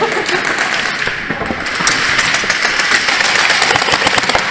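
Airsoft guns firing in rapid bursts, a dense clatter of sharp clicks and cracks.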